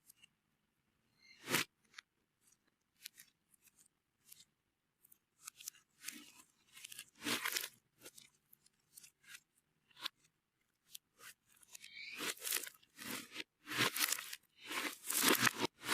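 Slime being worked with powder by hand, making short crunchy, crackling squishes with faint clicks between them. The squishes come thicker and louder near the end.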